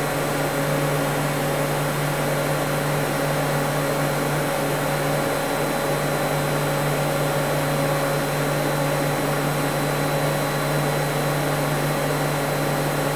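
Steady mechanical hum and hiss of a powered-up CNC lathe and shop machinery, with a low drone and a few faint steady tones. No cutting is going on: the toolpath is only being simulated on the control.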